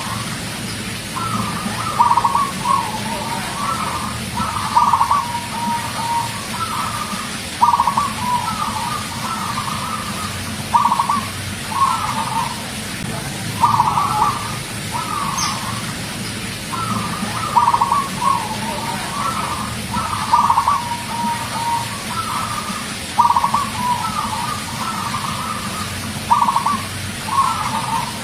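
Zebra dove (perkutut) singing: short rolling coos in repeated phrases, each a few quick notes with a drawn-out final note, coming again and again in even bouts.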